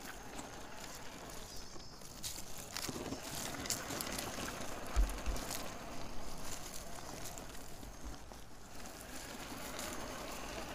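Small RC crawler truck driving slowly over loose gravel and stones, its tyres crunching on the rocks with scattered small clicks and knocks, the loudest a dull knock about five seconds in.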